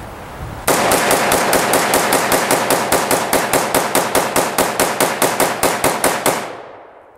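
Rifle firing a long rapid string of about thirty evenly spaced shots, roughly five a second. The sound fades away near the end.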